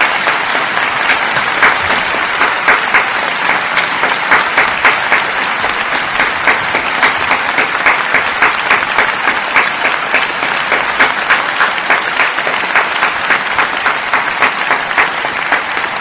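Applause: many hand claps in a steady, dense run.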